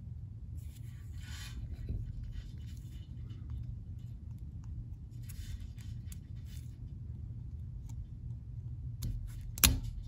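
Needle-nose pliers scraping and working at the small white plastic terminal lock of a Toyota wiring connector, in two short scratchy spells, then a sharp click near the end as the lock pops free of the connector housing.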